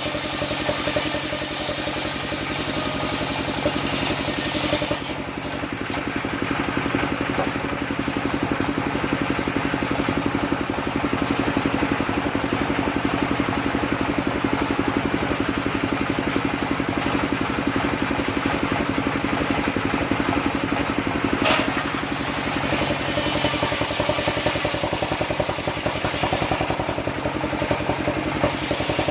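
Engine of a portable circular sawmill running steadily with a constant hum. A brighter hiss in the first five seconds drops away, and there is a single sharp knock about twenty-one seconds in.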